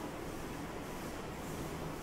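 Soft footsteps on a wet, snow-dusted path over a steady low hum of distant city traffic; a faint low drone comes in partway through.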